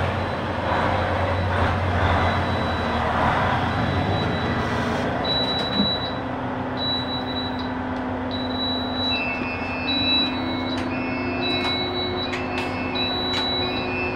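Rumble of a stationary INKA-built PNR train's engine, then in the driver's cab a repeating electronic beep, about one every second and a half, from the control desk. A steady low hum and a few sharp switch clicks go with the beeping.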